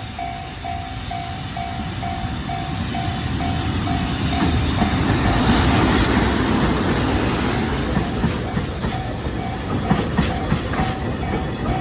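Level crossing warning bell ringing in even pulses about twice a second while a freight train of tank wagons hauled by an EF65 electric locomotive passes. The train noise swells to its loudest about halfway through, and sharp wheel clacks over the rail joints come in during the second half.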